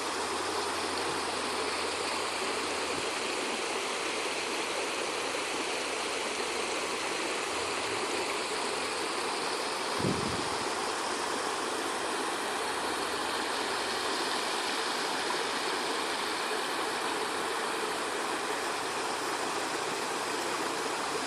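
Steady, even rush of water, unchanging throughout, with one faint knock about halfway through.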